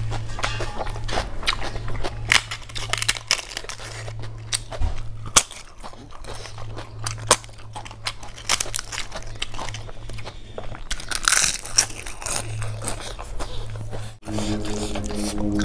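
Close-miked mouth sounds of chewing and crunching food, with crisp crackles as papad is broken by hand over rice, all over a steady low hum. Background music comes in near the end.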